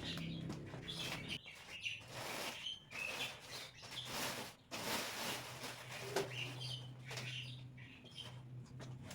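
Short bird chirps scattered throughout, with rustling and light knocks of things being handled and a faint low hum underneath.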